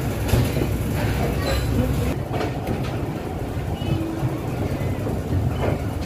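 A passenger train rolling, heard from its carriage: a steady heavy low rumble with a few short knocks from the wheels.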